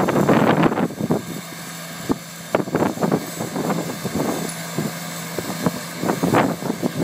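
Tractor-mounted COCHET Viper hydraulic hedge trimmer, its rotary cutter head chopping through a conifer hedge: a dense crackle of branches being cut over a steady hum. The cutting is heaviest at the start and again near the end, with scattered sharp snaps in between.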